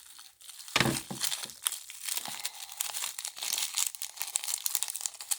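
Toy packaging crinkling and rustling as it is handled, with a thump about a second in.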